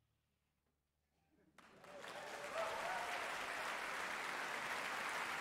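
Concert audience applauding: near silence at first, then clapping breaks out about one and a half seconds in, swells quickly and holds steady.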